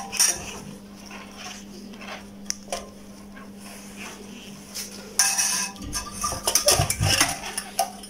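Light clinks and scrapes of an electric heater's ceramic element plate and coiled heating wire being handled, with a denser, louder clatter of the parts being moved about five seconds in. A steady low hum runs underneath.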